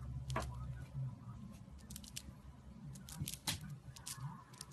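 Dwarf hamster nibbling food in a person's palm: scattered tiny crisp clicks, single and in small quick clusters, over a faint low hum.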